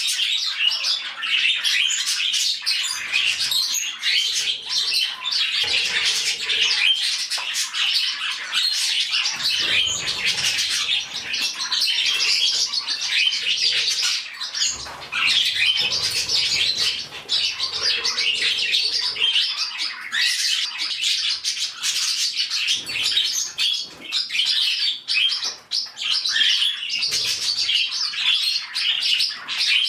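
A flock of budgies chattering and screeching loudly and without a break, many birds calling over one another in rapid, high-pitched chirps.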